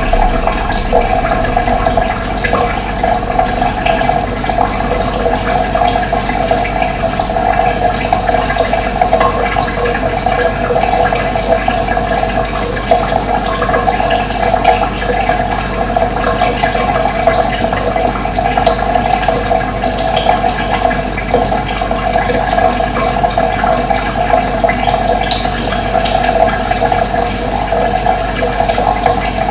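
Running water flowing steadily, a continuous rushing gurgle with no let-up.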